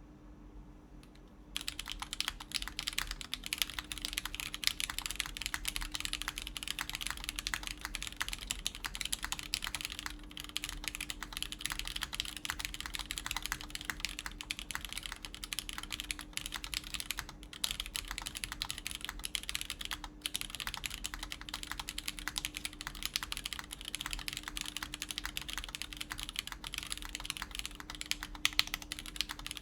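Continuous fast typing on a mechanical keyboard with lubed Everglide Tourmaline Blue switches and GMK keycaps, in a NovelKeys Classic TKL case with a polycarbonate plate and only a silicone case insert. The typing starts about a second and a half in.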